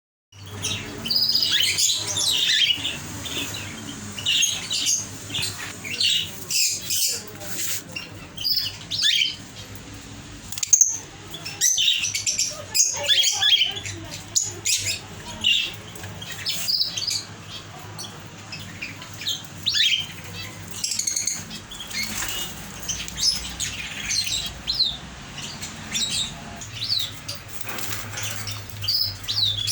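Many small caged birds chirping and calling over one another in quick, overlapping notes, over a steady low hum.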